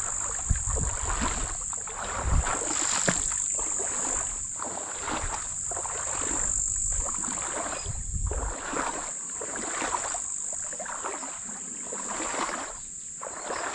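Shallow water sloshing and swishing around a person's legs as they wade slowly, with a splash at each step about once a second. A steady thin high hiss runs underneath.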